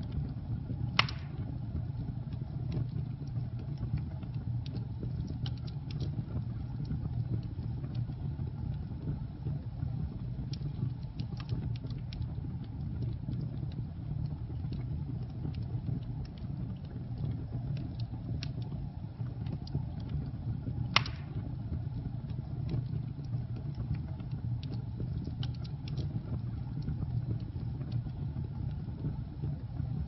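Burning log fire: a steady low rumble of flames with scattered crackles. Two sharp pops stand out, one about a second in and another about twenty seconds later.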